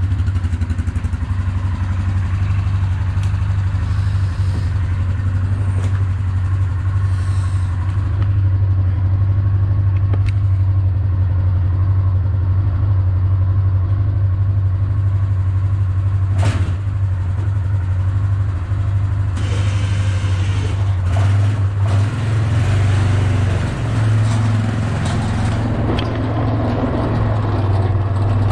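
Quad (ATV) engine running steadily at low speed, a loud low drone, heard close from a camera mounted on the plow-fitted quad. Two sharp clunks stand out, about a third of the way in and just past halfway, and the engine note shifts a little about three-quarters through.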